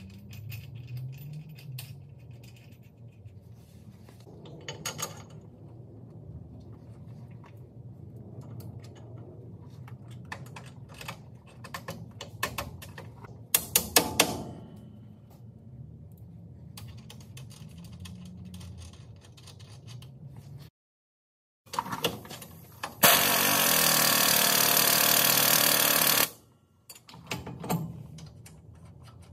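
Clinks and clanks of steel steering parts and hand tools being handled, with a loud cluster of knocks about halfway through. Later comes a steady burst of air-tool noise lasting about three seconds, the loudest sound here, over a low shop hum.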